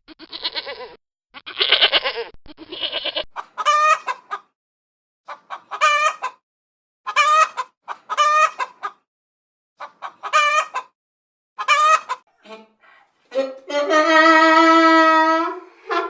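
A goat bleating for the first few seconds, then a peacock calling loudly six times, one call every second or so, and a long drawn-out call near the end.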